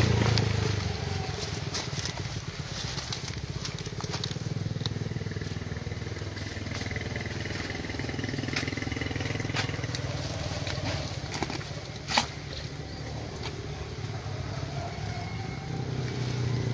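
A small engine drones steadily underneath, with light rustling and crackling as a wet net and water weeds are handled, and one sharp click about twelve seconds in.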